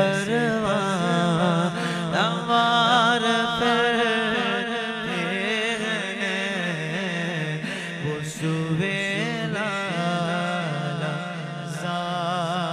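A man chanting a naat, an Urdu devotional poem in praise of the Prophet, in long, wavering sung notes.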